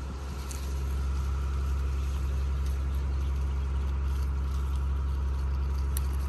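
A steady low hum of a running engine, unchanging throughout, with a faint click or two.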